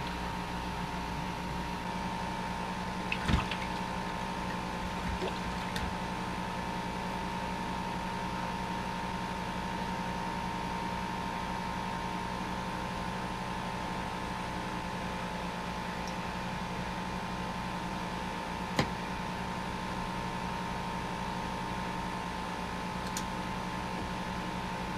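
A steady machine-like hum with a constant tone, with a sharp knock about three seconds in and another a little before the end.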